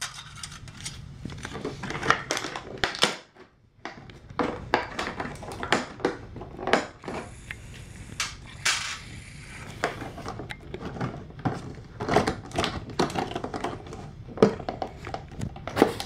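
Small tin toy tea set pieces (cups, saucers, plates) clinking and clattering as they are handled and set down, mixed with crinkling of clear plastic packaging. Irregular quick clicks and clinks throughout, with a brief pause about three seconds in.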